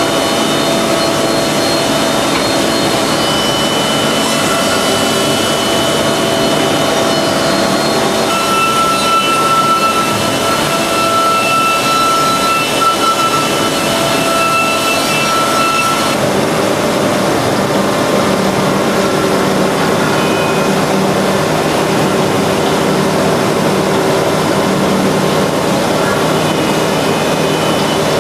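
Five-axis CNC machining center milling a metal part: the spindle and cutter make a steady loud noise under spray. Several whining tones come and go as the cut changes, one of them lasting from about a third of the way in to about halfway.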